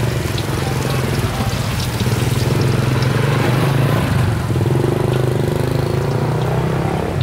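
An engine idling steadily close by, a low pulsing drone, over the sizzle of dough frying in a wide basin of oil.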